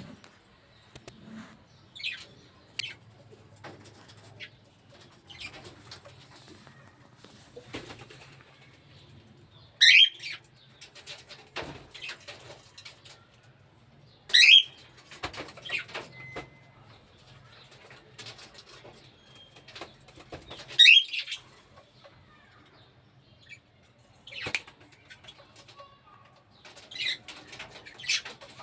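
Lovebirds fluttering their wings and giving short, high-pitched chirping calls, with three much louder calls about ten, fourteen and twenty-one seconds in.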